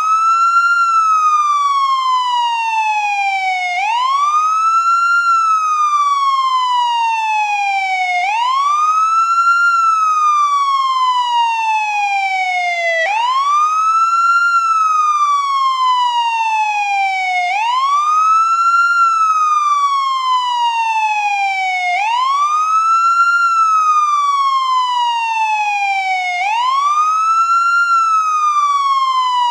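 American ambulance wail siren cycling steadily. Its pitch sweeps up quickly, then falls slowly, repeating about every four and a half seconds.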